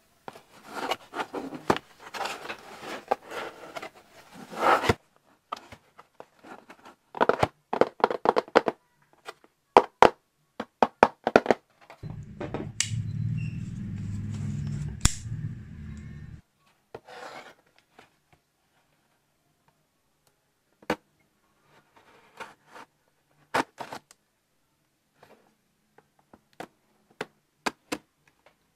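Close-up handling of an AirPods box and its packaging: rustling and scraping, then a quick run of sharp clicks and taps. A low hum lasts about four seconds midway, followed by scattered single clicks.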